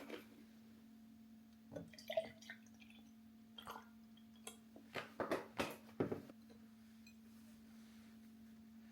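Milk being poured into a glass, heard as a few short splashing and glugging sounds and knocks of the bottle and glass, in a cluster about five to six seconds in. A steady low hum runs underneath.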